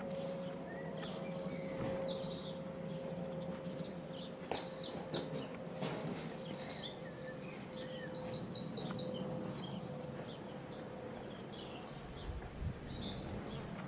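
A small songbird singing rapid, repeated chirping phrases, loudest from about four to ten seconds in, over a faint steady drone with a held tone.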